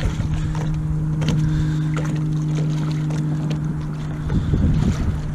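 Wooden rowboat being rowed: a few faint knocks of the oars working in their oarlocks, under a steady low hum and wind rumbling on the microphone.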